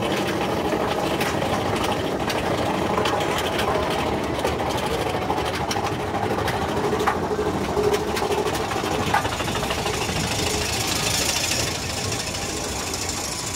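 Mine-train roller coaster cars running along the track, the wheels giving a steady loud clatter full of quick clicks and rattles. About ten seconds in, a higher hiss joins in.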